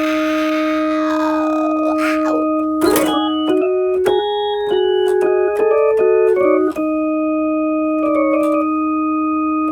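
An electronic organ-like tone holds one steady note. About three seconds in, with a sharp click, it steps through a quick run of different notes for about four seconds, then settles back on the first note.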